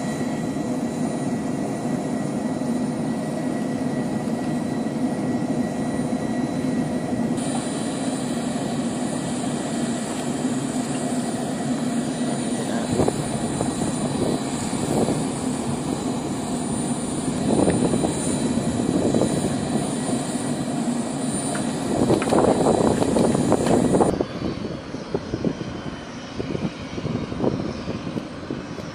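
Jet turbine noise on a flight line: a steady rumble with a constant high whine. It changes abruptly about seven seconds in and drops quieter near the end.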